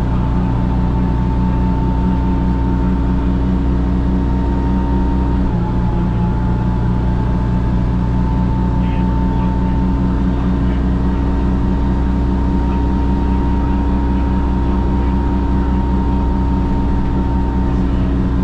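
The 1980 GM New Look bus's Detroit Diesel 6V71N two-stroke V6 diesel running steadily under way, heard from inside the cabin, with a steady whine above the engine note. The note breaks briefly about five and a half seconds in, then carries on.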